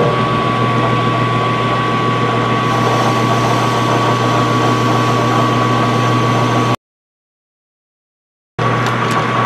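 Metal lathe running steadily with a parting tool cutting a groove into an aluminum idler wheel: a steady hum with a thin high whine over the cutting noise. The sound cuts out completely for nearly two seconds a little before the end, then comes back.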